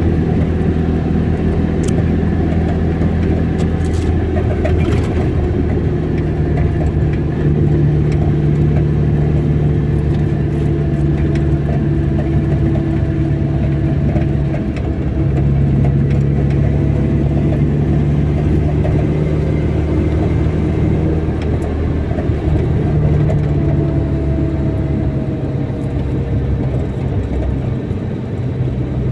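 A car driving: a steady engine hum and road noise, with the engine note shifting in pitch a few times.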